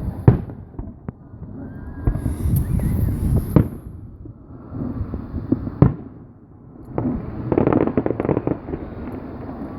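Aerial fireworks going off: several sharp single bangs, with two stretches of dense crackling, one about two seconds in and one near the end.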